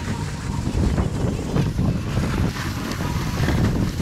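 Wind buffeting the microphone over the rumble of a plastic sled sliding down a packed snow slope, with small bumps and scrapes along the way.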